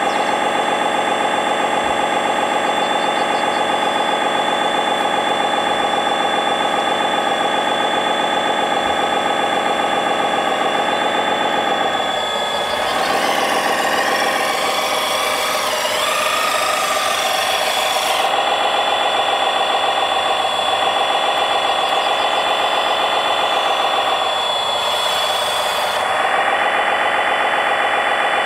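Radio-controlled scale construction machines running: a steady motor whine with a slightly wavering hum, joined by a hissing, scraping noise for several seconds about halfway through and again briefly near the end.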